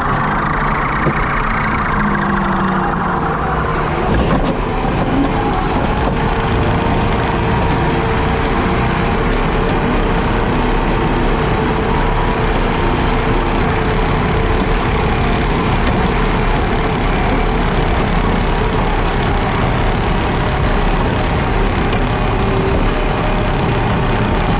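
JCB Teleskid skid steer's diesel engine running steadily while it drives a 7-foot Jenkins bush hog mower, a dense, continuous machine drone. A higher whine drops in pitch and fades out over the first few seconds.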